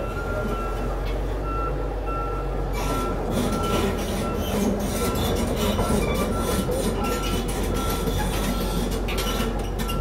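Liebherr 731 crawler dozer's diesel engine running and its steel tracks clanking on paving stones as it drives, the clanking setting in about three seconds in. A warning beeper sounds steadily about every three-quarters of a second.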